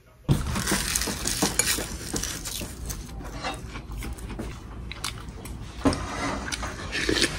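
Eating at the table: a metal spoon and chopsticks clicking and scraping against ceramic bowls, with chewing noises, in a string of irregular light clinks. The sharpest clinks come about six seconds in and just before the end.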